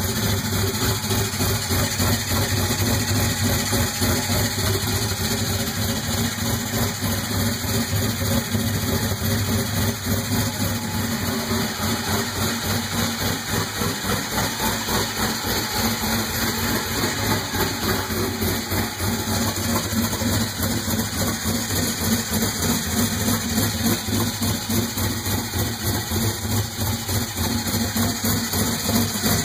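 Twin-turbo Ford Mustang 4.6-litre two-valve V8 with MMR Stage 3 turbo cams idling steadily, its exhaust note pulsing rapidly and unevenly.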